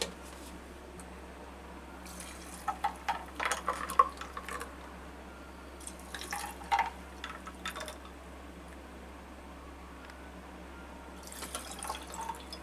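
Watermelon juice poured from a stainless steel pot into glass tumblers over ice cubes, splashing and trickling in three short bouts as each glass is filled.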